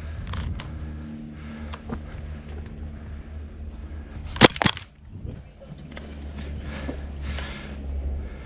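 Gas-blowback airsoft gun firing a quick burst of about three sharp shots, about four and a half seconds in. A steady low hum runs underneath, with scattered faint clicks.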